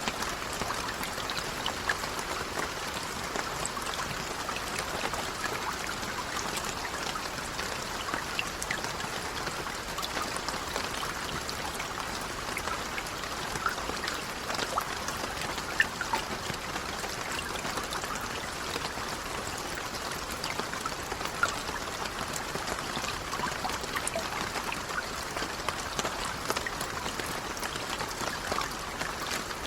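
Light rain falling steadily, a continuous even hiss with many scattered single drop impacts, a few of them louder.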